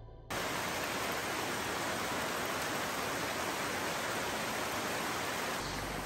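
Rainforest ambience: a steady, even rushing hiss that cuts in suddenly just after the start.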